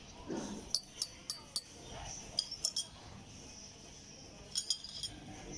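Metal teaspoon stirring a drink in a ceramic cup, clinking against the rim and sides in short irregular runs of light, sharp ticks.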